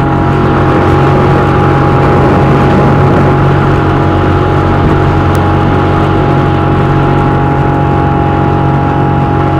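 An engine running steadily at constant speed, loud and close, with a steady rush of wind or water noise over its hum.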